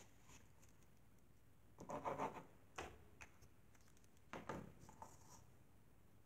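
Paper and card stock being handled on a work mat: two short scratchy rubbing sounds of paper sliding, about two seconds in and again about four and a half seconds in, with a few faint ticks between them.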